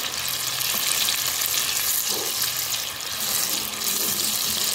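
Pieces of animal fat (suet) sizzling in a frying pan as they start to melt, stirred with a wooden spoon. A steady high hiss.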